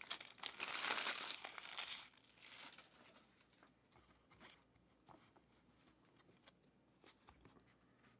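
Crinkling and tearing of trading card pack wrappers as packs are torn open, loudest for the first two or three seconds, then faint clicks and rustles of handling.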